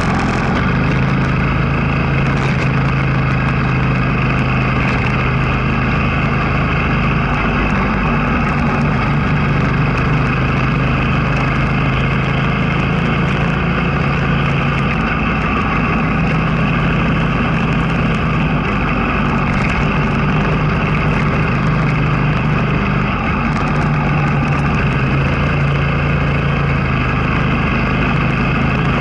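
Motorcycle engine running steadily under way, heard from a camera mounted on the bike, a low drone over a constant rush of noise; its tone shifts a few times, about halfway through and again near the end, as the throttle changes through the bends.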